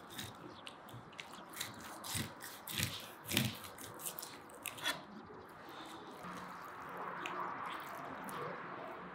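Long knife slicing a whole pike along the backbone and rib bones: a run of crisp crunches and clicks for about five seconds, then a softer, steadier sound as the fillet is lifted away from the frame.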